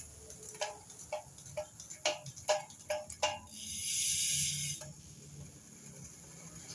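Metal clinking, like hand tools on motorcycle engine parts: about seven sharp, ringing clinks, roughly two a second. They are followed by a high hiss lasting about a second.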